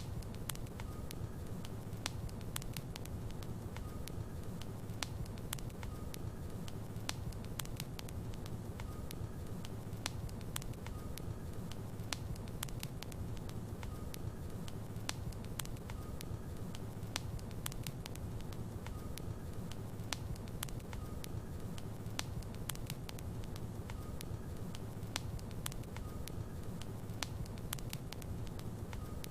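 Logs burning in a fireplace: a steady low rumble of flames with frequent sharp, irregular crackles and pops from the wood.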